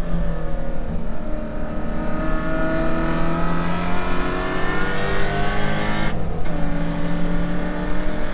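Holden VK Commodore's 308 V8 race engine heard from inside the cabin, pulling hard with its pitch rising for about six seconds, then a quick upshift and the engine pulling again from lower revs.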